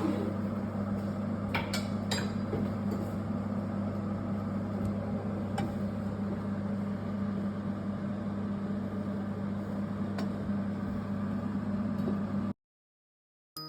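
Steady low electric hum of a running kitchen appliance motor, with a few faint clinks of utensils; the sound cuts off suddenly near the end.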